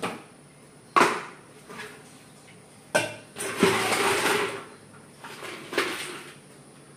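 Ice cubes clattering in a scoop as ice is dug out of an ice container. There are sharp knocks about one and three seconds in, a longer rattle of ice just after, and another knock near the end.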